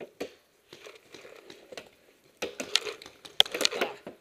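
A paintball player running between bunkers: footfalls on dirt and gear rattling, heard as irregular sharp knocks and scuffs that come thick and loudest in the last second and a half.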